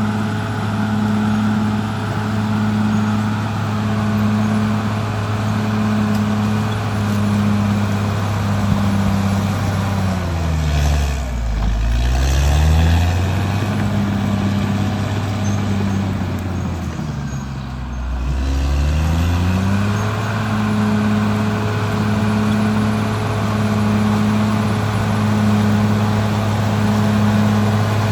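Caterpillar D6R XL bulldozer's diesel engine running steadily. Its pitch drops and climbs back twice, about ten and seventeen seconds in.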